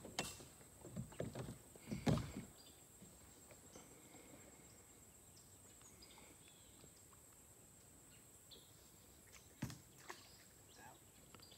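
Kayak paddle knocking and splashing against the hull and water a few times in the first couple of seconds, then a faint, quiet stretch with a steady high-pitched hum and two sharp clicks near the end.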